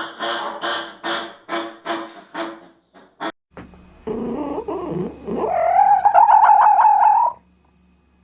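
A rapid series of goose-like honks, about three a second, fades out over the first three seconds. After a short break comes a different animal's loud, drawn-out, wavering call that rises and then holds for a couple of seconds before stopping abruptly.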